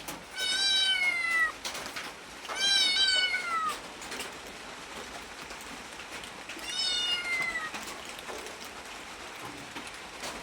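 Domestic cat meowing to be fed: three long meows a few seconds apart, each falling slightly in pitch at the end.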